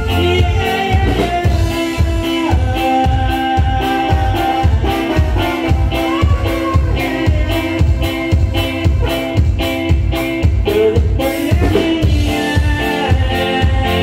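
Norteño band music playing, with a steady bass-and-drum beat under a melody of long held notes.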